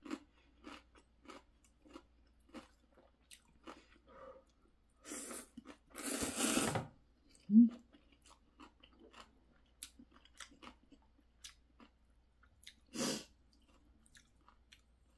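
Close-miked eating sounds of a person eating ramyeon noodles: steady wet chewing clicks, broken by noisy slurps of noodles about five to seven seconds in and again near the end. There is a short low hum just after the long slurp.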